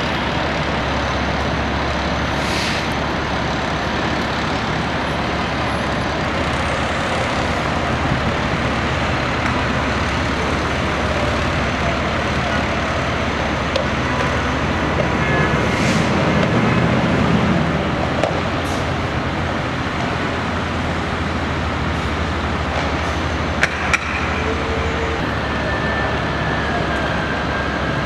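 Fire engine's diesel engine running steadily with street traffic noise, swelling briefly just past the middle.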